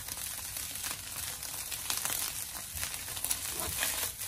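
Egg fried rice stir-fried in a wok over high heat: a steady sizzle full of small crackles as the grains dry and pop, with the rice being stirred and tossed against the pan.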